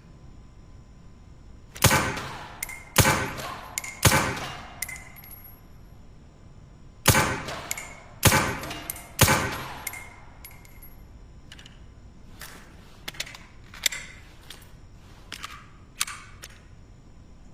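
Suppressed pistol shots: three sharp reports about a second apart, a pause of about three seconds, then three more, some followed by a brief metallic ring. Several much fainter clicks follow in the second half.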